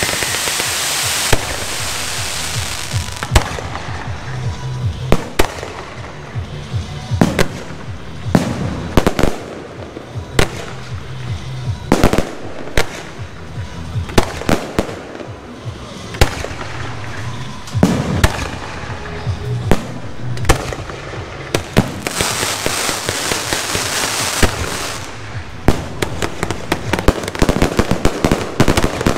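Fireworks display: ground fountains hissing for the first second or so, then shells launching and bursting with sharp bangs at irregular intervals. A second dense hissing stretch comes about 22 seconds in, and rapid volleys of bangs near the end.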